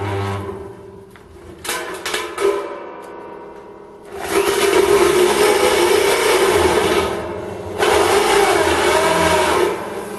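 Corded electric drill with a stepped drill bit cutting into hard stainless steel sheet, running in four bursts: a short one at the start, then three longer ones with the loudest in the middle. The steady motor whine comes with a harsh cutting screech, and the drill's gearbox, which the owner says is dying, is noisy.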